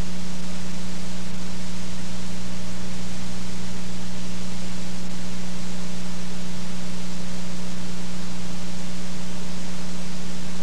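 A steady, loud hiss with a constant low hum underneath and nothing else. This is the noise-filled audio of an old videotape recording while a broadcast countdown clock is on screen.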